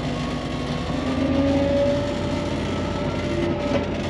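Vehicle engine running steadily, with a whine that rises slightly in pitch about a second in.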